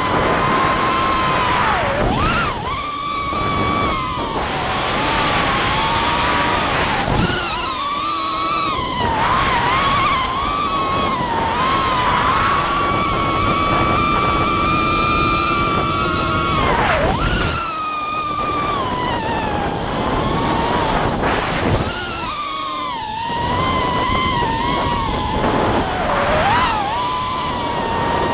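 Racing quadcopter's brushless motors (DYS 2205 2300 KV with DAL props) whining in flight, heard from the onboard camera. The pitch rises and falls with the throttle and drops sharply four times as the throttle is chopped, over a steady rush of noise.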